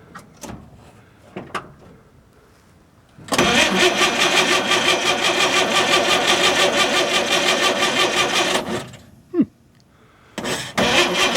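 1955 Chevy truck's freshly rebuilt starter cranking the engine with an even pulse for about five seconds, the engine not firing, then cutting off. Near the end the starter engages again.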